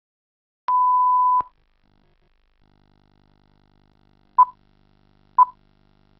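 Film-leader countdown beeps: a steady electronic beep tone lasting under a second, then short beeps once a second marking the countdown numbers, over a faint low hum.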